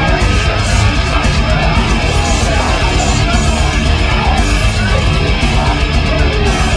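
Loud heavy rock music with electric guitar, playing without a break.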